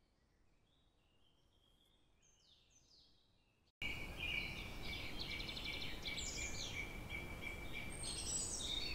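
Birds chirping and calling over a steady background hiss of ambience. Very faint at first, then about four seconds in the ambience cuts in much louder, with many quick chirps and a held high note.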